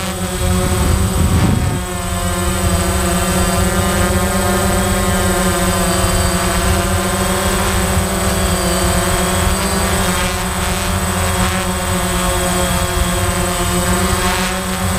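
DJI Phantom quadcopter's motors and propellers whining steadily, as picked up by the camera on board, with the pitch shifting slightly as the throttle changes. A brief low rush of wind about a second in.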